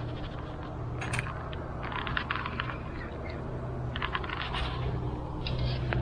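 Spinning reel and rod being handled, giving several short bursts of small clicks and ticks.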